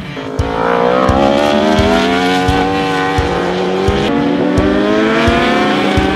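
1000 cc superbike engines at full throttle, the note climbing steadily, dropping at a gear change about four seconds in, then climbing again.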